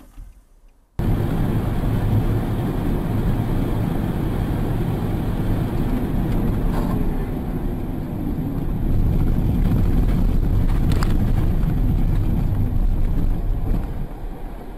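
Car driving at highway speed, heard from inside the cabin through a dash camera: steady road and wind noise with a low rumble. It starts abruptly about a second in and gets a little louder from about nine seconds in.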